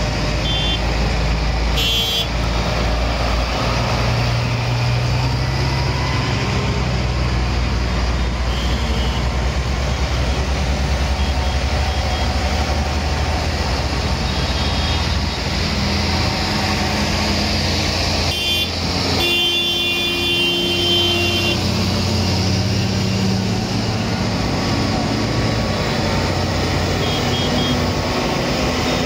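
A line of tractors driving past one after another, their diesel engines running steadily with a low note that shifts as each one passes. Short high-pitched tones sound briefly about two seconds in and again around eighteen to twenty-one seconds in.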